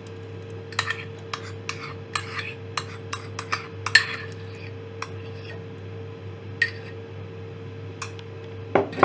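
A spoon clinking and tapping against dishes as curd is spooned onto raw chicken for a marinade: a quick run of light clicks, the loudest about four seconds in, then a few scattered taps. A steady low hum runs underneath.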